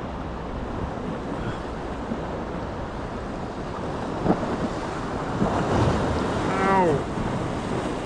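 Surf washing against a rocky shoreline, with wind buffeting the microphone. A single sharp click about four seconds in.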